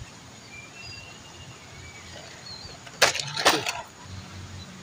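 A short burst of crackling and snapping, as of dry twigs and leaves being crushed, about three seconds in, loudest in two close clusters. Faint bird chirps sound in the first half.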